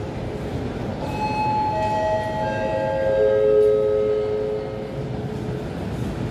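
Approaching 81-760/761 "Oka" metro train whining in a series of steady tones that step down in pitch one after another, typical of its traction inverters as it slows, over a low rumble from the tunnel.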